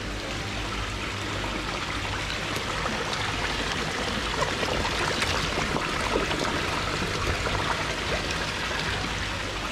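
Water pouring and splashing steadily into a koi tank from an inlet, a constant splashing trickle.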